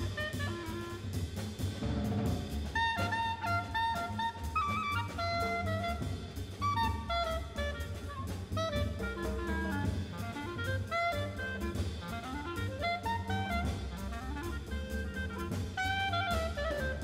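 Big-band jazz: a clarinet solos in quick melodic runs over the rhythm section, with double bass and drum kit cymbals keeping time.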